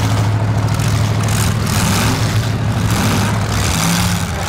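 V8 engines of several demolition derby cars running with a steady low drone, with a couple of short revs rising and falling partway through.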